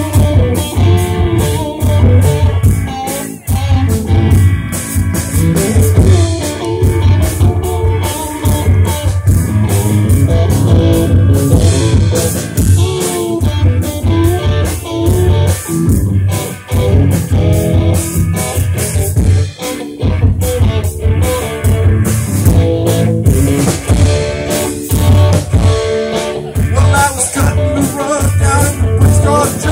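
A live rock band playing through a PA: a drum kit keeping a steady beat under electric guitars.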